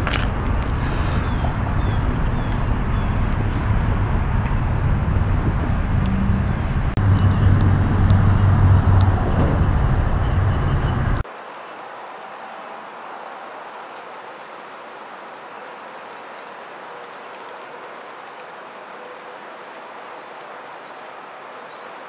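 Insects singing: a steady high buzz with a faint, regular pulsing chirp beneath it. For the first half a louder low rumble runs underneath, then cuts off abruptly about eleven seconds in, leaving the insects alone and quieter.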